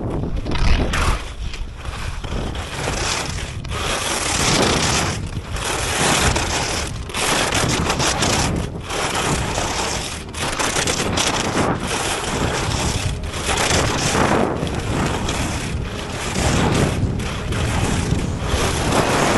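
Vector Glide giant-slalom race skis carving turns on hard-packed snow, the edges scraping in a loud surge with each turn and dipping between turns about every second and a half.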